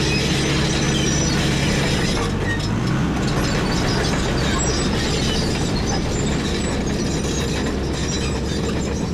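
CAT D5K crawler dozer working: its diesel engine running steadily under the clanking and rattling of its steel tracks.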